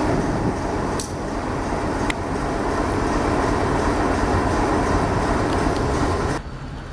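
Diesel freight locomotives running: a steady, loud engine rumble as a train approaches, with two sharp clicks about one and two seconds in. The sound drops off suddenly near the end to a quieter rumble.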